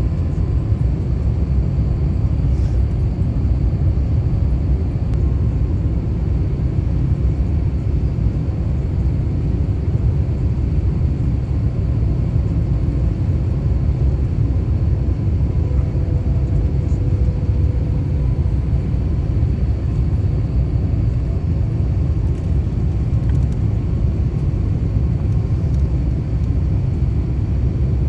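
Steady low rumble of cabin noise inside an Airbus A350-900 airliner on approach with its landing gear down, engines and airflow running evenly throughout.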